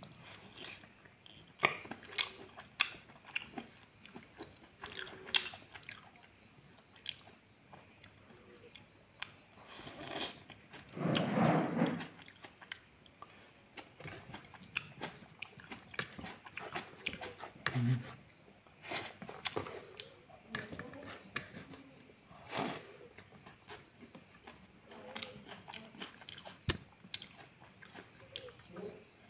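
Close-up chewing and biting of boiled pork and rice eaten by hand, with many short, sharp, wet mouth clicks and smacks. One louder sound about a second long comes near the middle.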